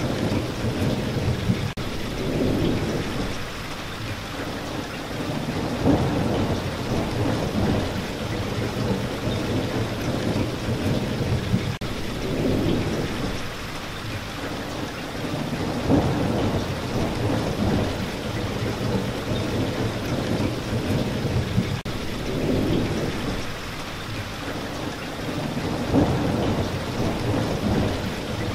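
Steady rain with low rumbles of thunder that swell and fade about every ten seconds.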